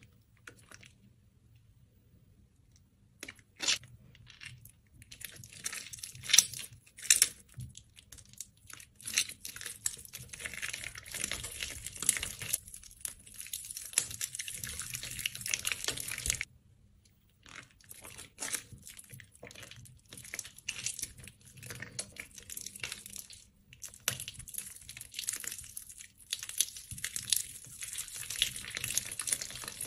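Soaked bar soap squeezed and crushed by hand, its softened layers crunching and crackling as it breaks apart into mushy chunks. It is nearly quiet for the first few seconds, and there is a brief pause a little past the middle.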